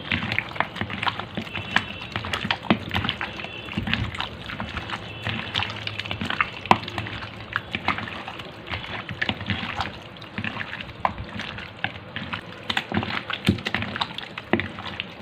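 Raw chicken pieces being mixed in a wet marinade of egg, vinegar, lemon juice and spice paste in a bowl: irregular wet squelching and slapping with many short clicks.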